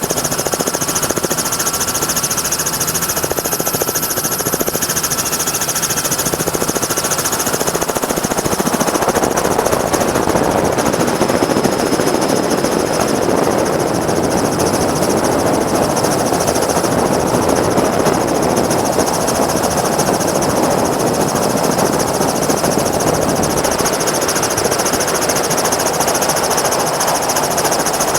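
Helicopter heard from on board: its rotor and engine give a loud, steady, rapid pulsing beat, with a rushing noise that grows stronger about nine seconds in.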